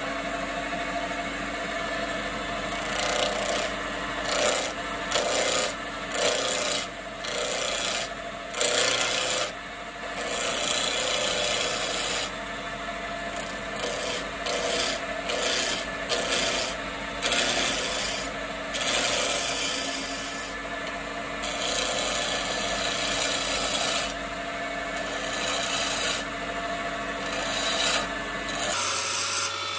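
Wood lathe running with a steady motor hum while a hand-held turning tool cuts a spinning mahogany handle blank, in repeated short scraping passes that begin about three seconds in. The hum changes abruptly just before the end.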